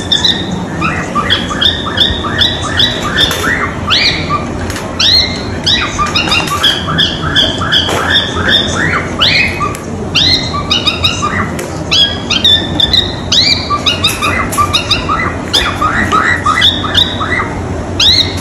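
Cockatiels chirping and calling again and again, short chirps and rising calls several times a second with hardly a pause.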